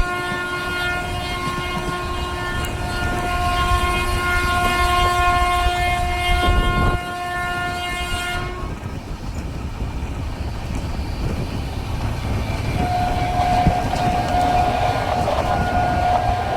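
WAP-7 electric locomotive's air horn sounding one long steady blast that cuts off suddenly about eight and a half seconds in, over the rumble and clickety-clack of the train running. A fainter horn tone sounds again for a few seconds near the end.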